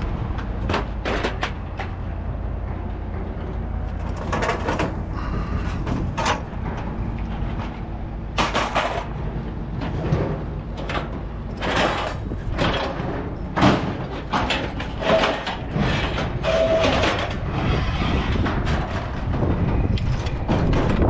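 Vehicle on the move: a steady low rumble with frequent irregular clanks and rattles from the loose scrap metal load.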